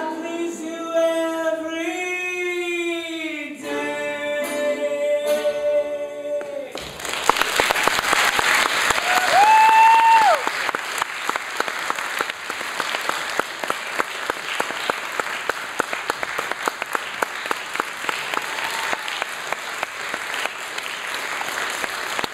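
A singer holds the last notes of a song over a guitar, ending about seven seconds in. An audience then breaks into applause and cheering, with a whoop about ten seconds in.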